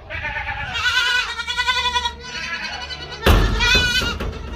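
Several goats bleating, overlapping, wavering high calls, as they come running to the keeper. A loud thump about three seconds in.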